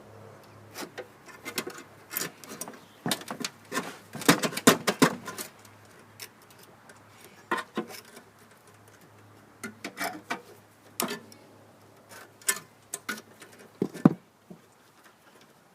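Irregular clicks, snaps and scrapes of hand tools working at a tangle of debris and wire wrapped around a Honda HRT216 mower's drive axle. The clicks bunch together about four seconds in and then come singly every second or two.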